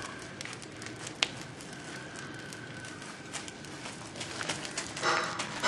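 Burning pile of cut brush and grass crackling, with scattered sharp pops. A louder rushing noise comes in near the end.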